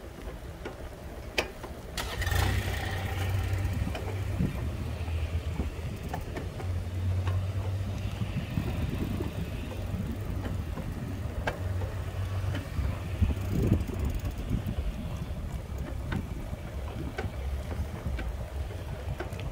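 A slow-moving small vehicle running steadily, a low hum from its motor setting in about two seconds in, with some wind noise on the microphone.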